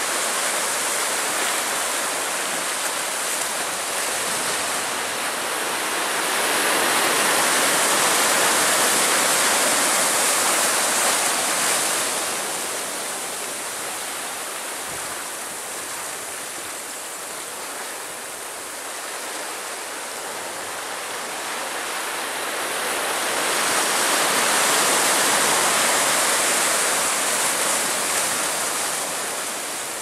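Ocean surf washing in over a rocky shoreline: a continuous hiss of breaking waves and foam. It swells twice, once a quarter of the way through and again near the end.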